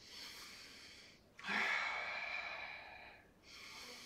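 A man breathing audibly into a close microphone while holding a Pilates exercise: three paced breaths, the middle one the longest and loudest.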